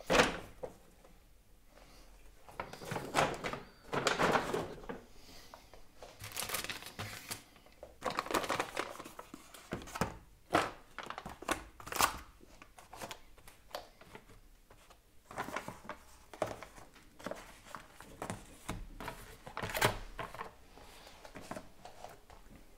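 Plastic meal trays with film lids being handled and set down on a countertop: irregular light knocks and clicks, with rustling and crinkling of the packaging.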